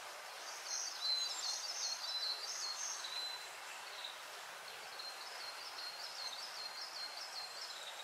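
A small songbird singing two phrases of rapid, repeated high notes, the first about half a second in and the second about five seconds in. Under it runs the steady trickle of a shallow stream over rocks.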